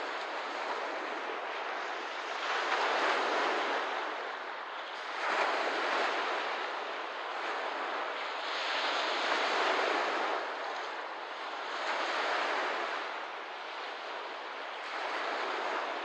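Small waves washing onto a lakeshore: a steady rush of water that swells and eases every few seconds.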